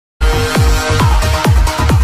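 Electronic dance music with a steady kick drum beating a little over twice a second under held synth tones, starting a moment in.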